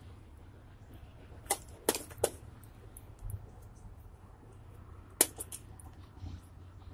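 A few sharp clicks and taps of metal hand tools against a bullet mold while it is handled for casting. Three come close together about a second and a half in, and one louder one comes just after five seconds.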